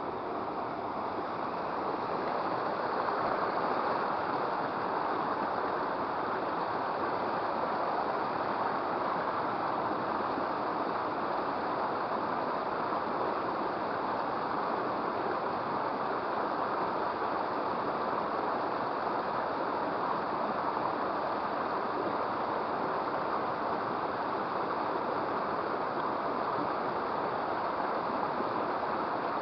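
Water of a small river flowing: a steady, even rush with no breaks.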